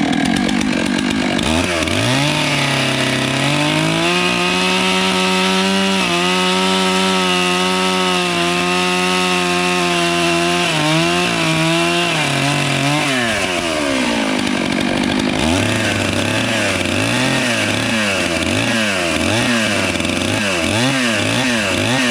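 Chainsaw running, cutting a chunk off a log: its engine holds a steady pitch under load with brief dips, then from about 15 seconds in revs up and down in quick swings.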